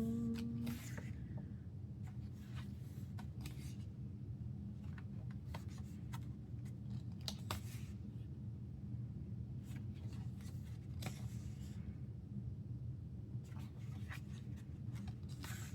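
Pages of an album photo book being turned and handled: scattered paper rustles, flicks and light taps over a steady low background hum.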